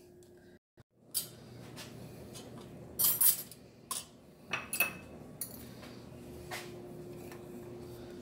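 Kitchen dishes and utensils being handled, with a string of short clinks and knocks against a bowl, starting about a second in after a brief silence.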